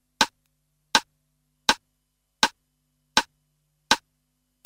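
Metronome click track ticking evenly at about 80 beats a minute, seven identical sharp clicks with no accent, giving the slow rock tempo before the count-in.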